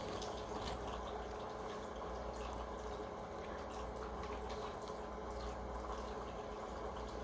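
Close-up chewing of a bite of crispy chicken sandwich: scattered faint wet clicks over a steady low background hum.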